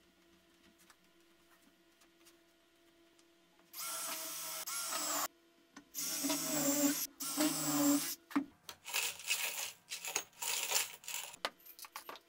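Milwaukee cordless impact driver running in two short spells, about four and six seconds in, spinning screws in to fasten an aluminium track to a plywood rail. After it, small metal screws rattle and clatter as they are shaken out of a glass jar.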